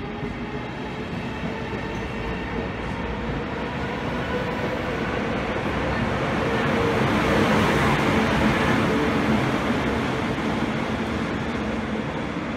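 Train of passenger coaches rolling past along the platform track, followed by its electric locomotive passing with a steady hum. The sound swells to its loudest about eight seconds in as the locomotive goes by, then eases off.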